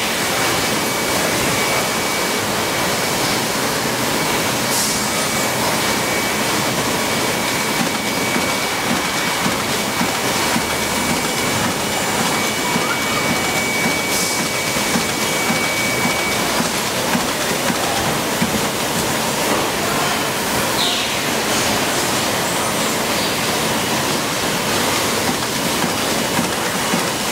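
Steady machine noise of an automatic motor stator production line running, an even hiss-like din with a thin high steady tone through the first half and a few faint brief whines.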